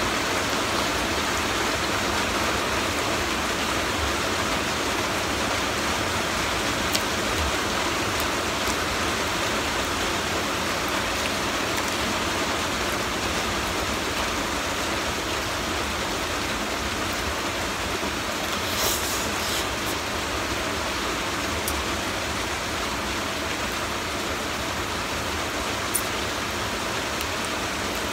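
Heavy rain falling, a steady even hiss, with a few faint clicks over it.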